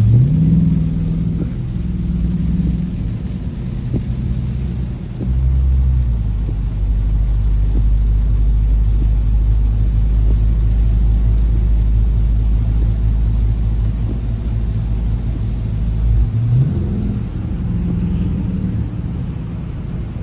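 Dodge car's engine heard from inside the cabin while driving: a steady low drone, with the engine note rising as it accelerates at the start and again about 16 seconds in.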